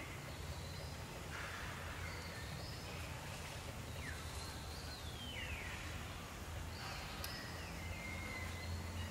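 Outdoor ambience: a steady low rumble with several high, thin animal calls that glide downward, spaced a second or more apart.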